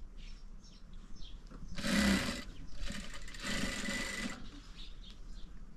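Sewing machine running in two short bursts of stitching, the second about a second and a half long.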